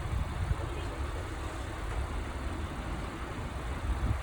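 Outdoor street background noise: a steady low rumble of road traffic.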